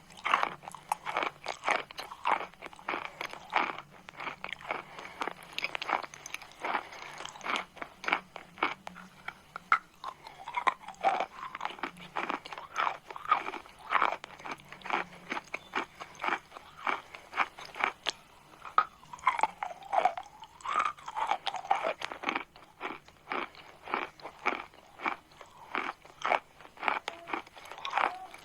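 Chalk crunching in a dense run of sharp, crisp crunches with short pauses between bursts.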